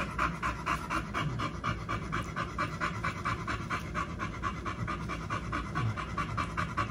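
American bully mother dog panting in a quick, even rhythm, several breaths a second, while whelping her litter.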